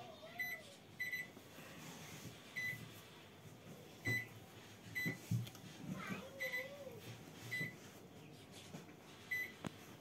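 Control panel of a Godrej 30-litre convection microwave oven beeping as its buttons are pressed: about eight short, high beeps at uneven intervals, a few in quick doubles. A brief wavering hum of a voice comes about six seconds in.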